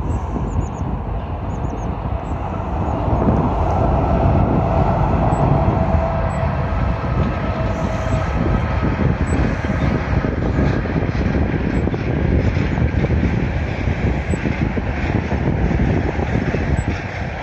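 Container freight train passing at a distance, a continuous rumble, with a steady whine for a few seconds in the middle.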